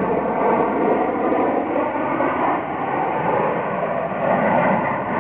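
Steady jet noise from the US Navy Blue Angels' twin-engine F/A-18 Hornets flying past in formation.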